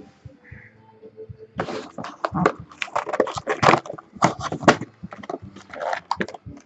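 Packaging of a sealed trading-card box being torn open: crackling of wrap and cardboard in quick irregular bursts, starting about a second and a half in.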